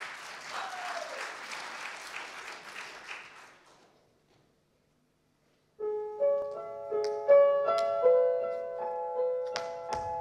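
Audience applause fading out over the first few seconds, then a short silence, then solo piano music starting about six seconds in with single sustained notes. Near the end a couple of sharp tap-shoe strikes land over the piano.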